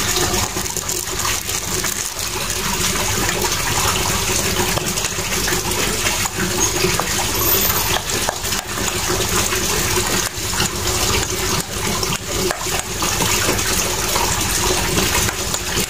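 A plastic spoon stirring and scraping thick bait dough in a stainless steel bowl, with scattered clicks, over a steady rushing noise like running water.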